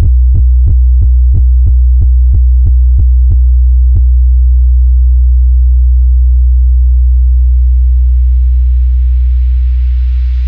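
Loud, sustained deep electronic bass tone from a DJ hard-bass sound-check track, held steady. About three short ticks a second sound over it for the first three seconds, with one more a second later, and a hiss builds and rises in the second half.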